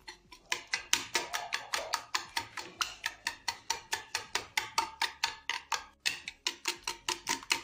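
Wire whisk beating a raw egg mixture in a plastic bowl, its wires clicking against the bowl in a rapid, even rhythm of about five strokes a second, with a brief pause about six seconds in.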